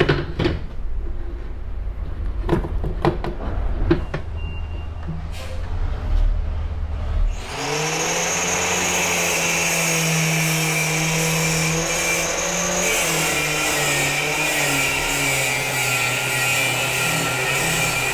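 Low rumble with scattered clicks and knocks. Then, about seven seconds in, an angle grinder starts cutting into the metal body of an old shock absorber to open it: a loud steady grinding hiss over the tool's motor hum, which sags slightly under load.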